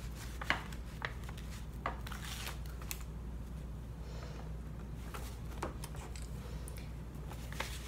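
Paper envelopes being handled and fitted together: a few scattered soft crackles and taps of paper over a low steady hum.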